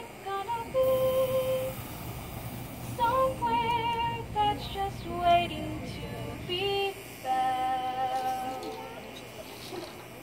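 A woman's solo singing voice holding slow, sustained notes with vibrato, phrase by phrase with short breaks between them, over a soft steady background.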